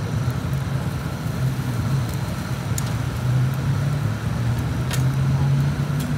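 Steady low rumble of road traffic, with a few sharp clicks about three and five seconds in.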